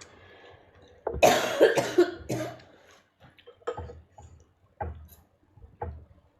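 A person coughing: a hard run of coughs about a second in, then three single coughs about a second apart.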